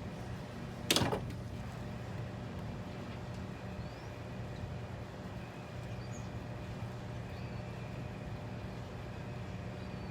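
One sharp metallic knock about a second in, a tool against metal during work on the engine bay, over a steady low hum.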